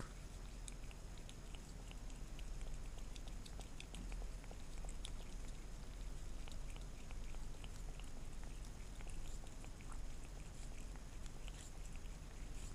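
A cat licking soft jelly from a small plastic cup: faint, wet tongue clicks coming irregularly, a few per second.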